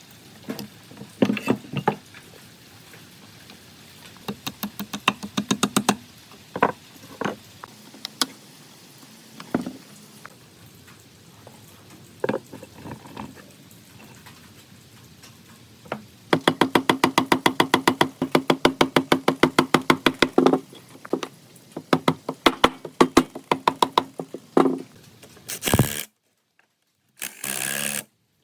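Hand-tool work on metal parts: scattered knocks and clicks, then a run of rapid, even clicks at about ten a second for around four seconds past the middle. The sound cuts out briefly near the end.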